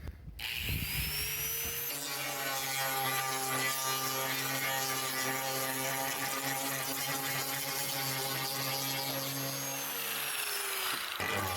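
Angle grinder with a grinding disc spinning up, running steadily while scuffing the surface to give it a rough key for bonding, then winding down near the end.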